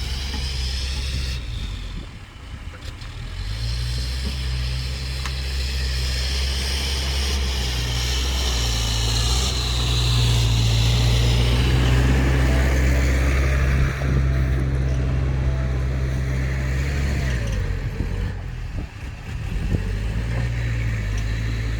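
Dump truck's diesel engine running under load, its speed rising in steps, easing off briefly near the end, then picking up again.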